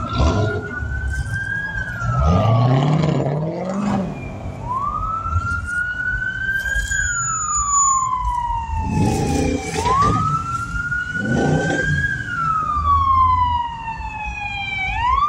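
A siren wailing, its pitch rising and falling in slow cycles about every five seconds, over the sound of cars driving past; one engine revs up about two seconds in.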